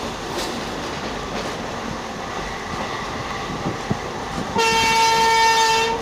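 Passenger train running at speed, steady rail noise with a few short knocks from the wheels. About four and a half seconds in, the WAP-7 electric locomotive's horn sounds one loud, steady note for about a second and a half.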